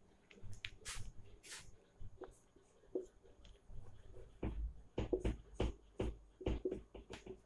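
Marker pen writing on a whiteboard: an irregular run of short strokes and taps, with a couple of longer hissing strokes about a second in.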